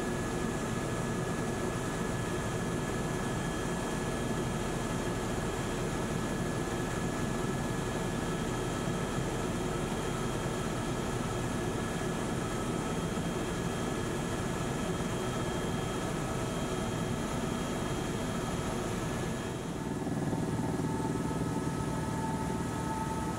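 Helicopter turbine and rotor noise heard from inside the cabin: a steady drone with several steady whining tones. Near the end the sound shifts: the high hiss drops away and a new steady tone comes in.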